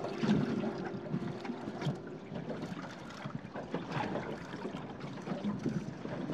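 Choppy sea water lapping and slapping irregularly against the hull of a small boat, with light wind.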